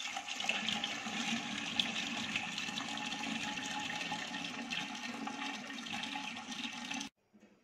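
Water rushing steadily in the stainless-steel upper container of a Terafil-candle gravity water filter as it is filled and rinsed, cutting off abruptly about seven seconds in.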